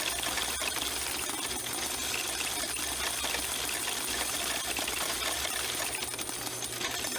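Coin-counting kiosk running, its motor humming while loose coins clatter and rattle through the sorter in a dense, continuous stream of clicks.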